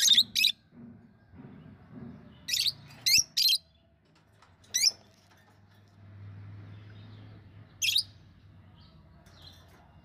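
Budgerigars giving short, sharp chirps: two at the start, three in quick succession from about two and a half to three and a half seconds in, then single chirps near five and near eight seconds.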